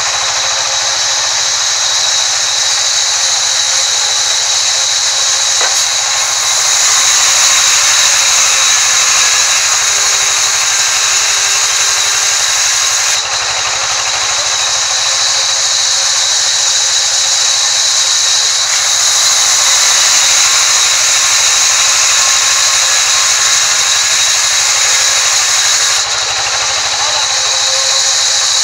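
Vertical band saw running and ripping a timber plank lengthwise, a loud, steady high-pitched hiss and whine of the blade in the wood. It grows a little louder twice, for several seconds each time.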